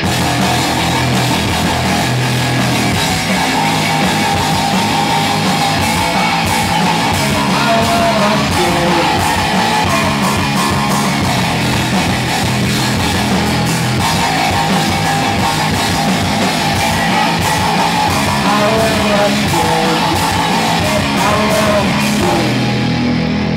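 Rock band playing live: loud electric guitars over bass and drums, without a break.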